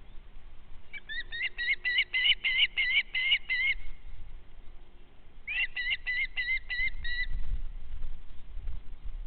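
A bird calling in two quick runs of repeated high notes, about four a second, with a pause between the runs. A low rumble of noise lies underneath.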